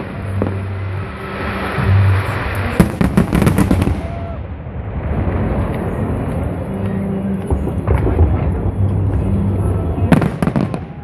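Aerial fireworks bursting overhead, with clusters of rapid crackling bangs about three seconds in and again near the end.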